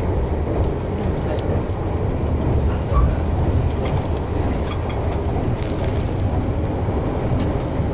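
Steady low rumble of a passenger train running, heard from inside the coach, with scattered faint clicks and one louder knock about three seconds in.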